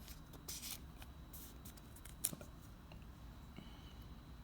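Faint rustling and light clicks of baseball cards and pack wrappers being handled, with one sharper click a little over two seconds in.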